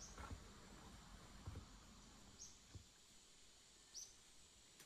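Near silence: soft footsteps on a wooden deck, with a short, slightly falling high chirp at the start, about two and a half seconds in and again near the end.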